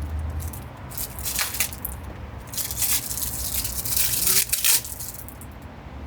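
Plastic packaging from an oil service kit rustling and crinkling in several short bursts as the new drain-plug washer is taken out.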